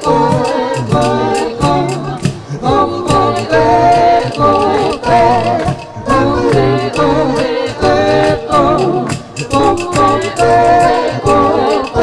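A cappella vocal group singing in several-part harmony into microphones, over a steady percussive beat.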